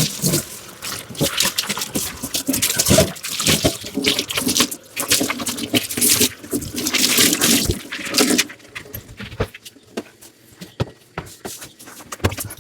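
Dishes being washed by hand at a sink: water running and splashing in irregular surges, with short clinks and knocks of dishware. It goes quieter for the last few seconds.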